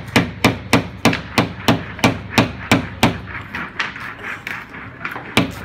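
Small hammer tapping nails into a wooden toy race car kit, quick even strikes about three a second. The strikes thin out about two-thirds of the way through, then pick up again near the end.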